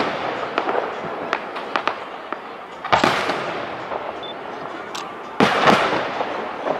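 Aerial firework shells bursting: a loud bang about three seconds in and two more in quick succession near the end, each trailing off over a second or more, with scattered smaller pops between.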